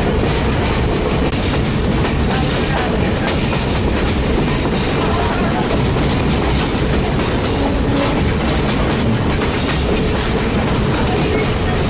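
Passenger train ride heard from aboard: a steady rumble of the cars with wheels clicking over the rail joints, and faint high squeals now and then.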